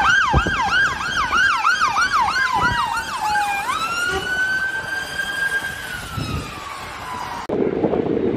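Fire engine siren sounding on the move: a fast yelp of about three sweeps a second, switching about three and a half seconds in to a slow wail that holds and then falls away. It cuts off suddenly near the end, giving way to street traffic noise.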